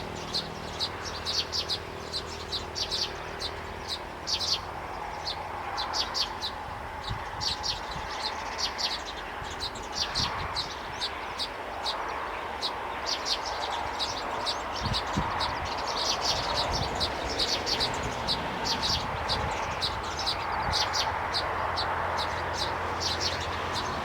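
Weaver birds chirping, many short high chirps in quick clusters throughout, over a steady background hiss and a faint low hum.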